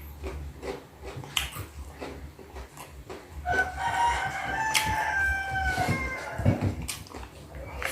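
A rooster crowing once, a single long call about three and a half seconds in that lasts roughly two and a half seconds and drops slightly at the end. A few sharp clicks are heard around it.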